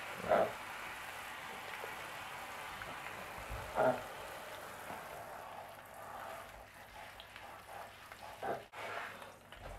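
Hand-held shower spray running steadily onto a shower tray while a piglet is washed, with three brief short sounds over it.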